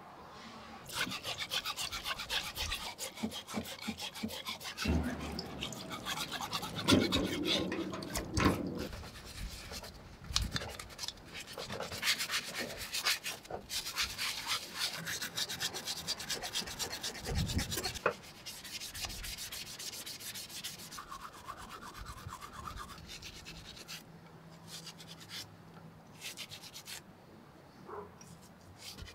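A bristle brush scrubbing metal vise parts in soapy water, in rapid back-and-forth strokes with a few sharp clicks as parts are handled. The scrubbing starts about a second in and is quieter in the second half.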